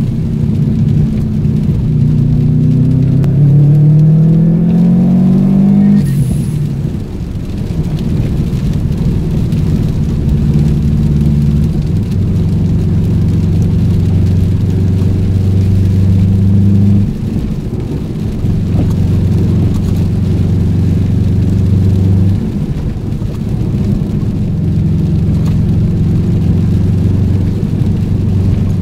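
Car engine heard from inside the cabin while driving. It climbs in pitch as the car accelerates, drops suddenly about six seconds in at a gear change, then runs steadily at a cruising speed with small changes in throttle.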